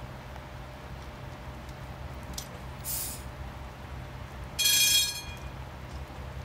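Sheffield Supertram tram running slowly in with a steady low hum. A brief high hiss comes about three seconds in, then a loud, high-pitched tone lasting about half a second, the loudest sound, near five seconds in.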